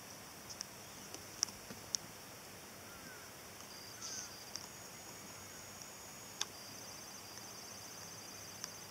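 Faint outdoor ambience of insects trilling steadily at a high pitch, with a pulsed trill joining about halfway through and a few sharp clicks scattered across it.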